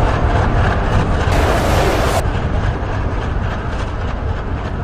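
Train rumbling, a steady low noise that slowly fades, with a short hiss about a second and a half in.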